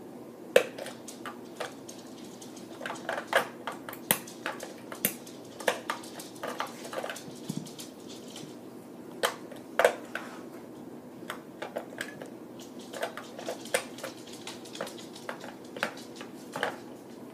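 Irregular small clicks and light knocks of AA batteries and hard plastic being handled and pressed into a Nerf Stryfe blaster's battery compartment.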